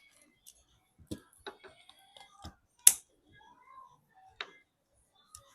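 Small sharp clicks and taps of phone parts being handled and pressed back together during reassembly, several scattered ones with the sharpest about three seconds in and another near four and a half seconds.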